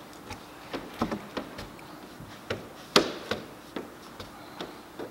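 Scattered light clicks and taps, a dozen or so, the sharpest about three seconds in, from a BlueMax squeegee being worked over wet tint film on a car's rear windscreen, corner by corner.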